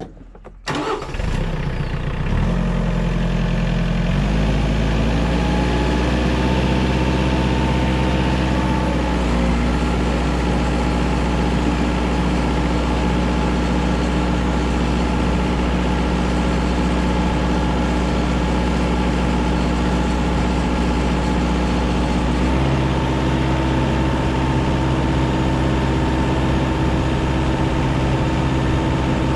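Compact TYM tractor's diesel engine starting, then speeding up in steps over the first few seconds as it is brought to about half throttle, roughly 2000 rpm. It then runs steadily under load as the hydrostatic tractor drives along in low range, its pitch shifting about nine seconds in and again near the end.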